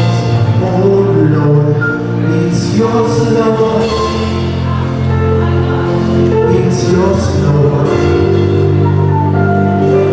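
Worship music with singing, held chords and a steady bass line.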